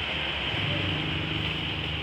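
Motor of a red brick press machine running steadily, a continuous low drone with a bright hiss over it.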